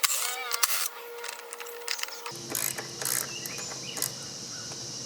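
Ratchet-like clicking and small metal clatter as fasteners are backed off on a lawn mower engine to get at its faulty ignition coil. The clicks are thickest in the first second, and a faint steady hum comes in a little after two seconds.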